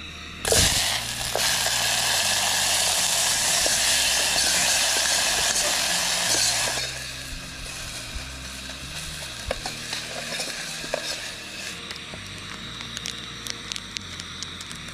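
Chopped onions dropped into hot oil in a camping pot, sizzling loudly for about six seconds. The sizzle then settles to quieter frying, with a metal spoon clicking against the pot as the onions are stirred.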